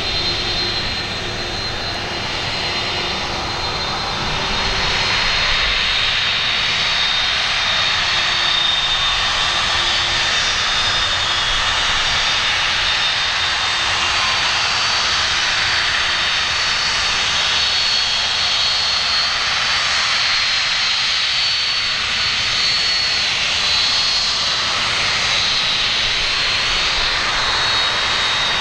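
Lockheed C-5M Super Galaxy's four General Electric CF6-80C2 (F138) turbofan engines running at taxi power as the aircraft turns slowly on the runway: a steady jet rush with a high fan whine. It grows louder about four seconds in and then holds.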